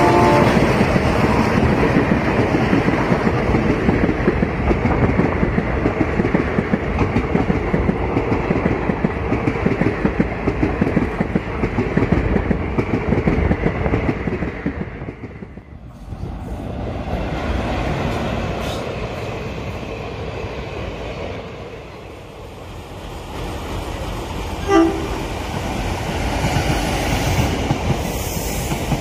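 Passenger coaches rolling past at speed, a steady rumble with wheels clattering over the rail joints, fading away about halfway through. Then another train rolls past, with a short locomotive horn toot near the end.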